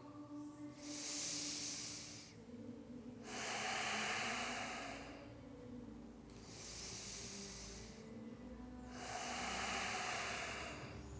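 A man's slow, deep abdominal breathing: four audible breaths, in and out by turns, each lasting about two seconds.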